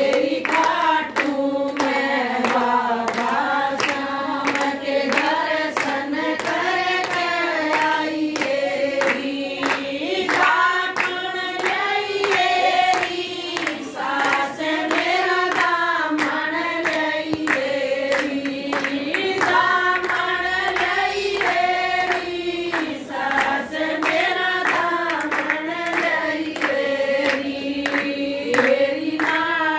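A group of women singing a Hindu devotional bhajan together, keeping time with steady rhythmic hand clapping.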